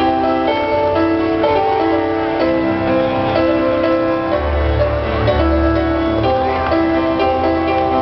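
Music with long held notes changing chord every second or so over a steady low bass.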